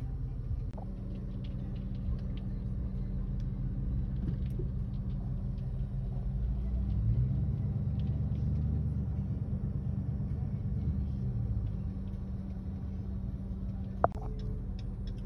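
Steady low rumble of a car's engine and tyres heard from inside the cabin while driving. It grows louder for a few seconds in the middle, and there is a single sharp click near the end.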